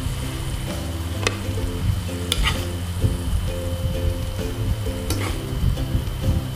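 Metal spatula scraping and clinking against the wok and plate as the cooked vegetables are served, a few sharp clicks, over light background music with a repeating melody.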